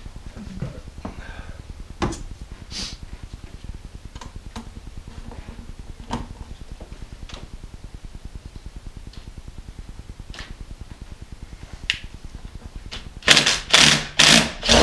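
Hand tools on engine bolts: scattered sharp metal clicks and knocks, then near the end a quick run of loud rasping strokes from a socket ratchet being worked.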